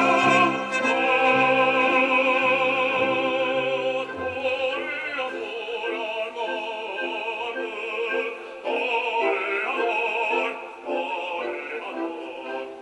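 A baritone singing operatically, holding notes with a wide vibrato, over instrumental accompaniment.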